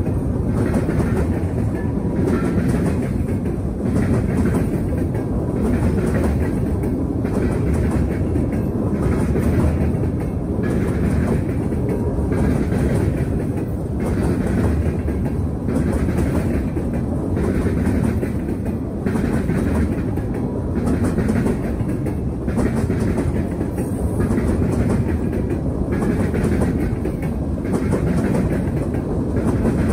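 Freight cars of a long Norfolk Southern freight train rolling steadily past close by: a continuous rumble of steel wheels on rail, with regular clacks about once a second as the wheels pass over the rail joints.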